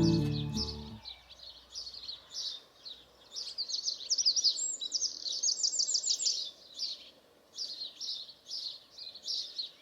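Wild birds singing: many short, high chirps and quick trills, busiest through the middle. A music track fades out in the first second.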